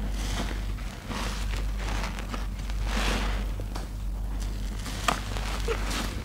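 Foam-covered sponge squeezed again and again in rubber-gloved hands: wet squishing and crackling of popping soap bubbles, rising and falling with each squeeze, over a steady low hum.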